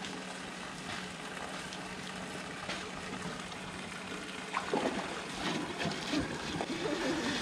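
Steady trickle and lapping of pool water, with a faint steady hum underneath; a few short, louder splashes or knocks come in the second half.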